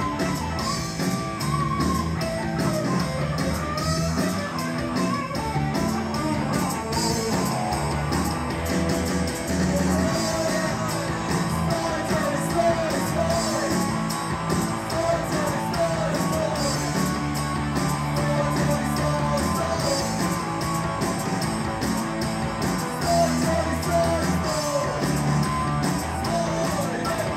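Live rock band playing: electric and acoustic-electric guitars, bass and drums, with a man singing lead into a microphone.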